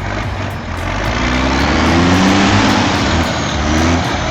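Truck engine revving hard under load, growing louder about a second and a half in.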